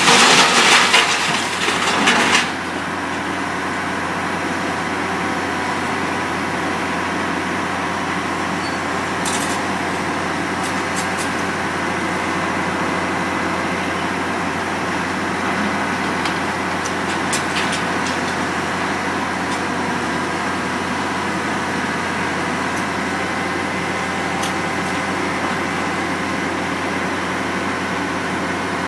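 Demolition debris crunching and cracking for about the first two seconds, then a heavy machine's engine running steadily, with a few sharp clanks.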